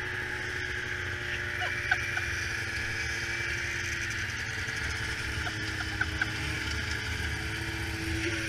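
Snowmobile engine running steadily as the sled rides over snow, a constant drone with a low rumble beneath it.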